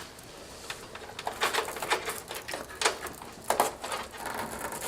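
Irregular clicks and rustling of a PCIe power cable being handled and threaded through a PC case.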